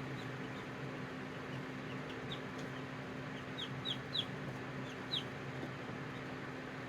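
Hatching chicks peeping: short, high chirps that fall in pitch, scattered at first, with a few louder ones bunched near the middle, over a steady low hum.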